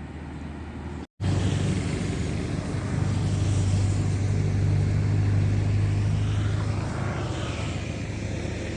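Kubota U50 excavator's diesel engine running steadily under working load. It cuts out completely for a split second about a second in, then comes back louder.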